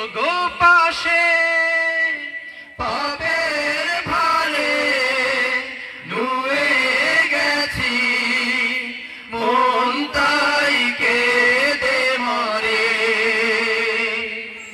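A group of male voices singing a Bengali Islamic devotional song (gojol) together, in long held notes with vibrato and short breaks between phrases.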